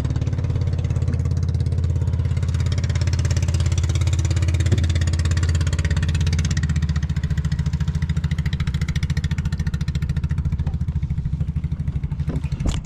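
Small engine of a motorized outrigger banca running steadily, a low drone with a fast even firing rhythm that eases off slightly about seven seconds in. A single sharp knock near the end.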